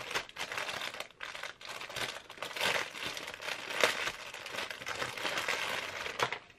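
Clear plastic packaging crinkling as hands pull it open and handle it, a dense run of crackles with a few louder ones.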